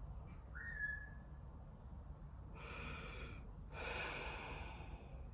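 A woman's breathing in a pause: a sharp breath in about two and a half seconds in, then a longer breath out a second later. A brief high chirp sounds about a second in.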